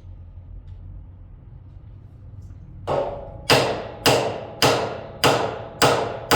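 Hammer blows, about six strikes a little over half a second apart, each ringing out briefly, starting about three seconds in.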